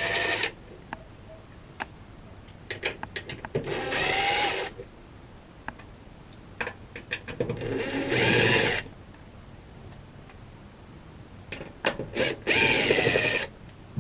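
Cordless drill-driver backing out the Phillips screws on a small access-door panel: four short runs of the motor about four seconds apart, each about a second long with a whine that rises in pitch. Light clicks and taps between runs as the bit is moved from screw to screw.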